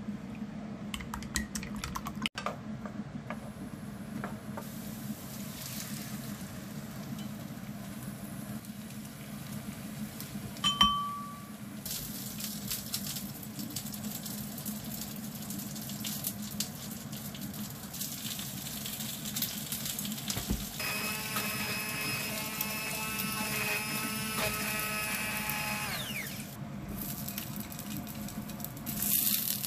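Kitchen work sounds over a steady low hum. There is a short electronic beep about a third of the way in. Later a small electric appliance motor runs for about five seconds, then winds down.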